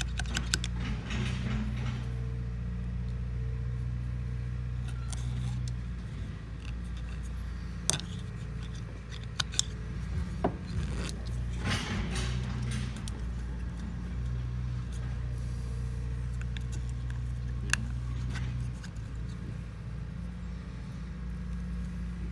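Light metal clicks and scrapes as V packings are pressed down into an airless sprayer pump's packing housing with a tool, over a steady low machine hum whose deeper tone cuts in and out.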